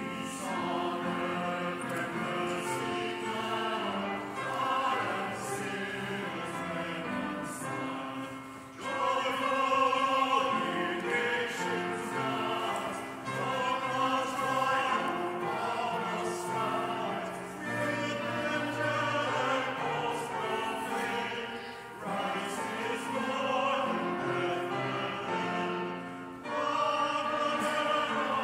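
Singing with keyboard accompaniment, in phrases of about four to five seconds with short breaks between them, like the lines of a hymn.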